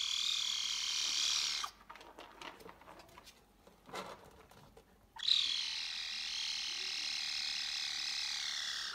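Caracal kitten giving two long, high-pitched cries. The first lasts about a second and a half; the second starts about five seconds in and is held for nearly four seconds. A few faint clicks fall in the gap between them.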